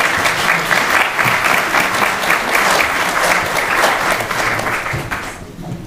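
Audience applauding at the end of a lecture, a dense steady clapping that fades out near the end.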